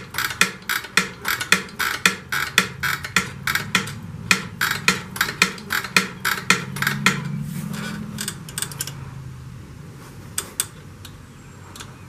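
Rapid, even clicking, about three clicks a second, over a low hum, from brake-bleeding work on a pit bike. The clicking fades out about nine seconds in, leaving a few scattered clicks.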